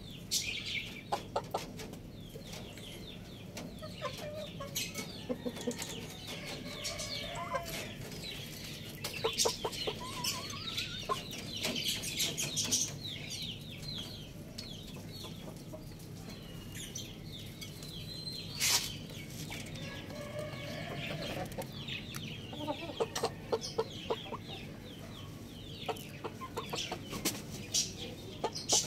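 Chickens clucking softly, with many short, high, quick chirps and scattered sharp taps. One louder knock about two-thirds of the way through.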